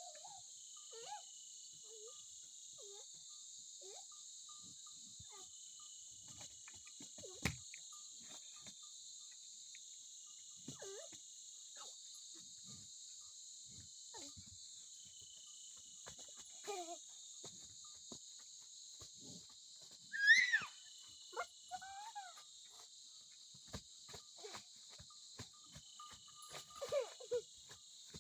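Steady high-pitched chorus of crickets and other insects, with scattered faint short calls over it and one loud, brief rising call about twenty seconds in.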